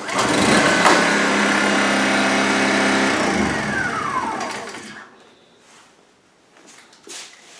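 Honda EU1000i inverter generator's small single-cylinder four-stroke engine catching and running again right after a remote shut-off, then winding down with falling pitch to a complete stall about five seconds in as the remote kill button is held in.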